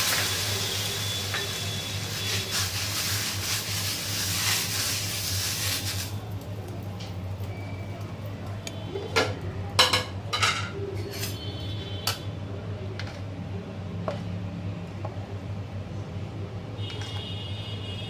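Water splashed onto a hot dosa tawa, hissing and sizzling off as steam, fading out after about six seconds. Then a few sharp metal clinks of utensils.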